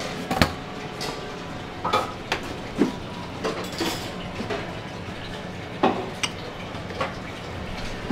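Dishes and utensils clinking and knocking on a stainless steel kitchen counter, in irregular single strikes, over a steady background hum.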